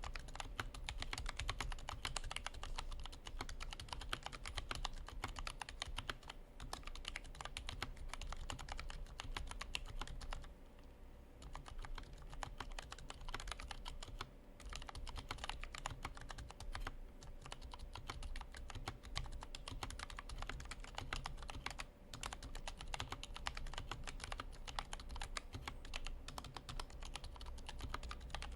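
Steady fast typing on a TADA68 mechanical keyboard with lubed, foam-filmed Ergo Clear tactile switches (Cherry MX Clears on 60 g springs), an aluminum plate and PBT keycaps fitted with o-rings: a dense run of keystrokes with a few short pauses.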